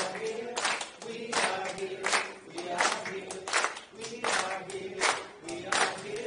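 People singing together in held notes over steady hand clapping, about one clap every three-quarters of a second.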